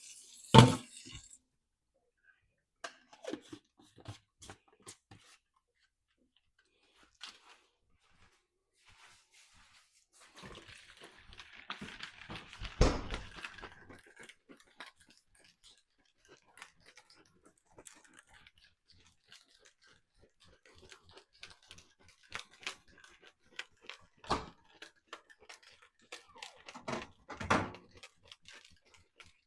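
Assorted close-up handling noises: scattered clicks and taps, a stretch of crinkly rustling from about ten to fourteen seconds in that ends in a loud knock, and a few more knocks near the end.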